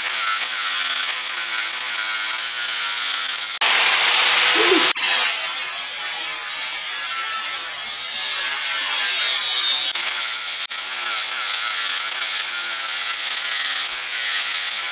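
Angle grinder with a flap disc grinding a steel axle tube, smoothing off the remains of cut-away leaf spring pads: a steady high whine over a rasping scrape. It gets louder for about a second around four seconds in and eases briefly a couple of times.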